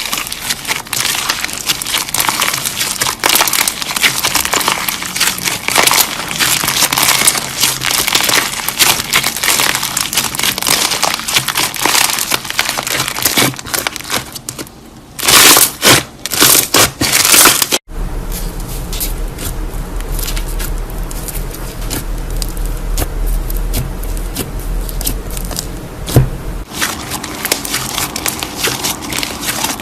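Slime being squeezed and kneaded by hand, with dense, irregular crackling and popping. A few louder squelches come about halfway through, then the crackling goes on more quietly over a steady low hum.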